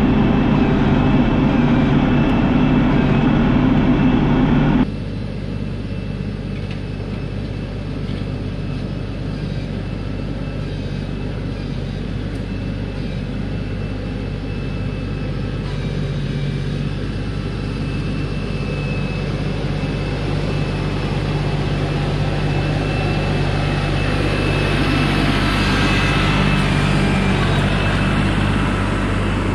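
LS MT342 compact tractor's diesel engine running steadily as it drags a box blade through rutted dirt. It is loud from the operator's seat for the first few seconds, then drops suddenly to a more distant sound that grows louder as the tractor comes closer near the end.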